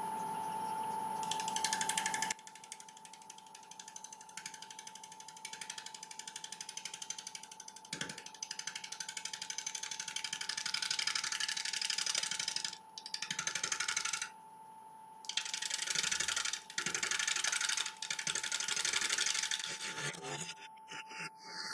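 Wood lathe spinning at about 700 RPM, with its steady whine, while a gouge cuts into a spinning applewood natural-edge bowl blank. The cut makes a fast rattling chatter as the tool meets wood and then air on each turn of the uneven live-edge rim. The chatter comes in several spells with short breaks.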